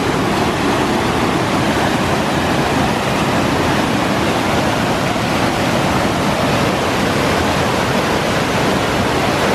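Loud, steady rushing of whitewater in a river running high with floodwater, churning through fast rapids.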